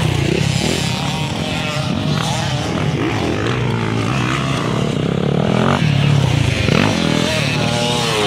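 Motocross dirt bikes' engines revving hard through a dirt-track corner, their pitch rising and falling with each throttle change. Near the end one bike passes close, its pitch sweeping up and down.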